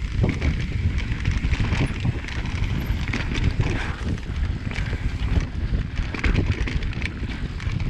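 Mountain bike riding a dirt trail: wind buffeting the microphone in a steady rumble, with rapid knocks and rattles from the bike over rough ground.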